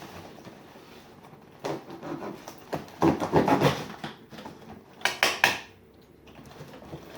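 A taped cardboard box being opened by hand: irregular rustling and knocking of the cardboard and its packing, with a quick run of sharp clicks about five seconds in.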